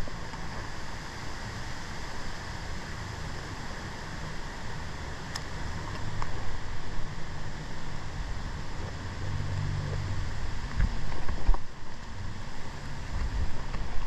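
Steady outdoor rumble with wind noise on the microphone, and a few low knocks about eleven seconds in.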